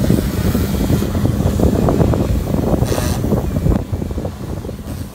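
Wind buffeting the microphone, a loud uneven rumble over a steady low hum, with a short hiss about three seconds in; it eases off near the end.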